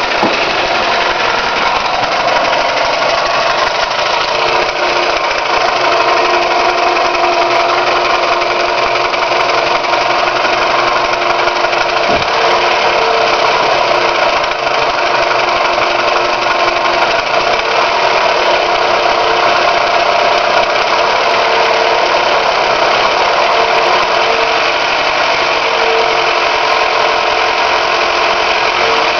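Toyota 5S-FE 2.2-litre inline-four engine running steadily at idle with a knock from inside the engine, whose cause the owner does not know.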